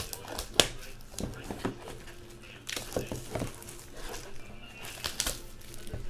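Trading-card packs being opened and handled: wrapper crinkling and tearing, with a series of sharp clicks and taps as the cards are handled.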